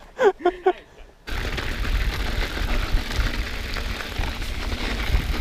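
A voice for about a second, then steady rumbling noise of a mountain bike being ridden along a snowy trail, with wind on the handlebar camera's microphone.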